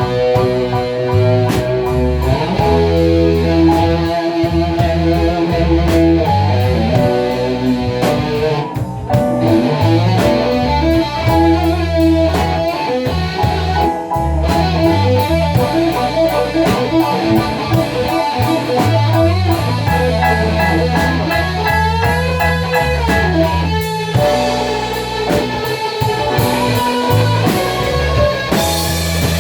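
A rock band playing: guitar lines over a steady bass and a drum kit.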